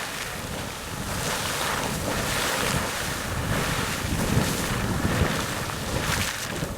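Sawmill Geyser, a fountain-type geyser, erupting: a continuous hiss of splashing water with uneven surges, mixed with wind buffeting the microphone.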